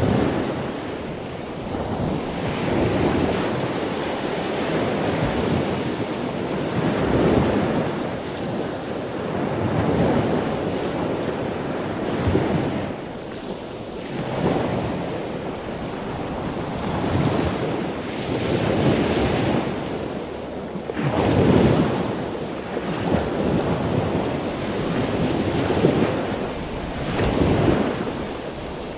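Wind buffeting the microphone: a loud rushing noise that swells and fades every few seconds.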